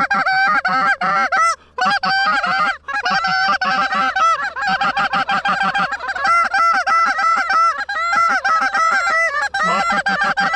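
Short-reed Canada goose calls blown hard and fast, a dense run of loud honks and clucks many times a second, with two brief pauses early on.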